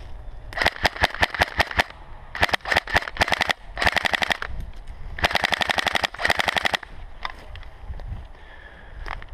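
Electric airsoft rifle (AEG) firing: a quick string of rapid single shots, then three full-auto bursts, the last and longest about a second and a half.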